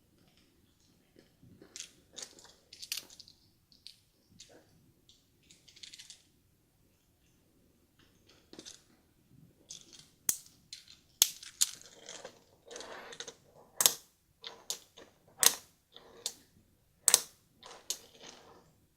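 Hands handling small plastic toy packages: scattered crinkles and sharp plastic clicks, sparse at first, then louder and more frequent over the second half.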